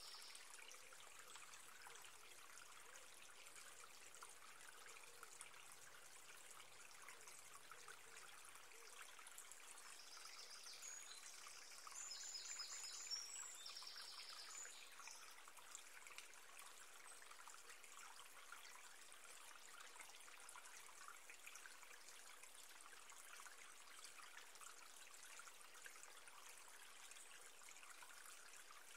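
Near silence: a faint, steady hiss of room tone, slightly louder about twelve seconds in.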